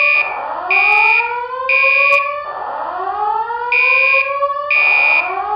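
Simulated old voice-evacuation fire alarm tone: a slow whoop rising in pitch over about two seconds, over and over, overlaid with a high steady horn tone in the temporal code-3 pattern, three short blasts and then a pause.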